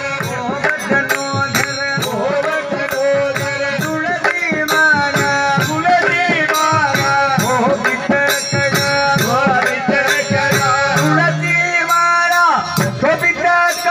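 Male voices singing a devotional bhajan, accompanied by mridangam drumming and a harmonium.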